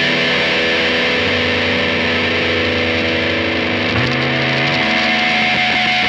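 Rock music with distorted electric guitar playing sustained, dense chords, and a low bass note that steps up about four seconds in.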